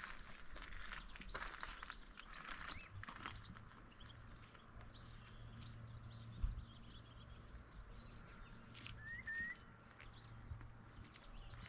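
Footsteps on a rocky, grassy path for about the first three seconds. Then a quiet outdoor background with a low steady hum, a single thump about six seconds in, and a short two-note rising bird chirp about nine seconds in.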